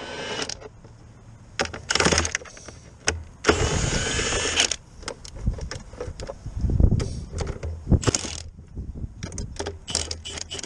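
Socket ratchet clicking in several short runs as a bolt at the car battery is turned, with clanks of the tool and handling in between.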